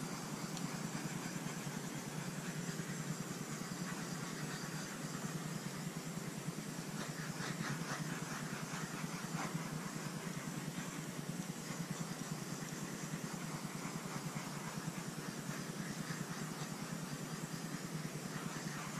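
Small handheld torch burning steadily over wet pour paint, a continuous hiss that stays even throughout.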